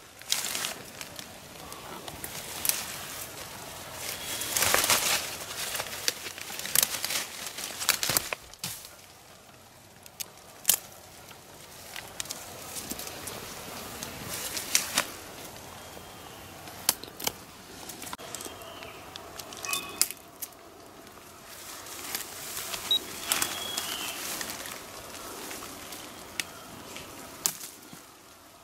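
Bamboo stems and leaves rustling, cracking and snapping as young bamboo shoots are pulled and broken off by hand, with sharp cracks every second or two and louder stretches of rustling about five seconds in and again a little past twenty seconds.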